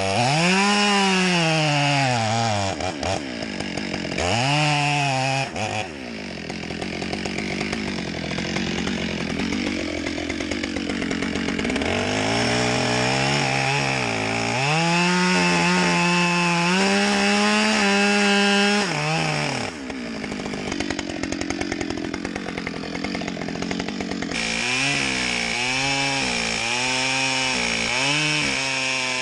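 Chainsaw cutting into a tree, its engine revving up and down at first, then holding a lower, steady pitch under load for several seconds before revving again near the end.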